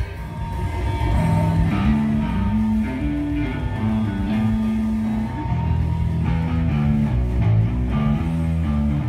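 Live metal band playing: a distorted electric guitar riff of held low notes stepping up and down, over bass and drums.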